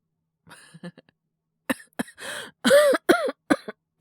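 A man's acted coughing fit, the cough of someone sick with a cold and fever: a faint breath, then a run of about six hard coughs, the loudest ones in the middle voiced and strained.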